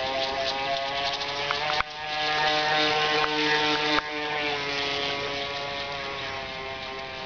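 Ansmann Lugano RC runabout's Kyosho AP-29-type electric motor running at speed: a steady whine with a buzz, from a drive shaft that vibrates badly. The sound jumps abruptly in level and pitch about two and four seconds in.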